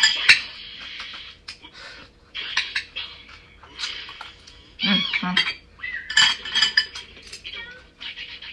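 Metal spoon and wooden chopsticks clinking and scraping against a ceramic rice bowl, with close-up chewing of a mouthful of rice. Two short voiced sounds come about five seconds in.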